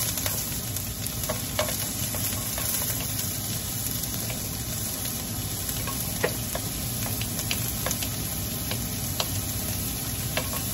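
Julienned ginger sizzling in hot oil in a wok, a steady frying hiss. Scattered light clicks come from a nylon spatula tapping against the plate and the wok.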